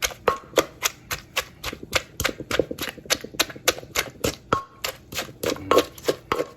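Pestle pounding in a mortar while long bean salad is being made, a steady run of strikes about four a second. Some strikes ring briefly.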